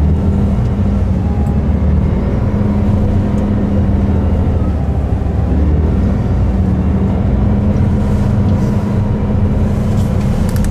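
A fishing boat's diesel engine running with a steady low drone, heard from inside the wheelhouse.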